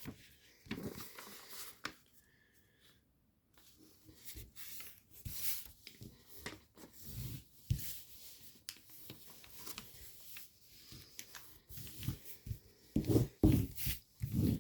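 Origami paper rustling and crinkling under the fingers in short, irregular scrapes as a flap is squash-folded and creased flat, with a near-silent pause about two seconds in.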